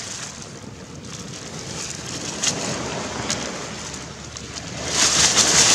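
Oil in a frying pan on a portable gas camping stove breaking into a loud, steady sizzle near the end as it comes up to heat. Before that there are only faint rustles and clicks.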